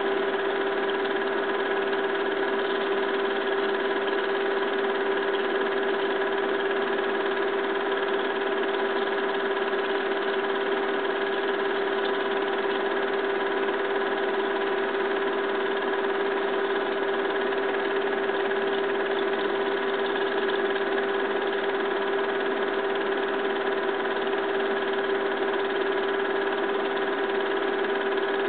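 Film projector running with a steady, unchanging mechanical hum and whir, carrying a constant drone with several fixed tones above it.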